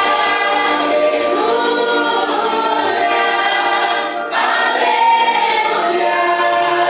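Worship song with a group of voices singing together over sustained instrumental chords.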